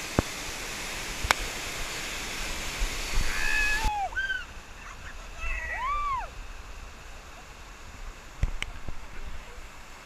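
Waterfall water pouring steadily, which cuts off abruptly about four seconds in to a softer rush of a stream over rock. Over it, several short, high-pitched excited whoops and shrieks from people sliding down the falls, with a couple of short knocks near the end.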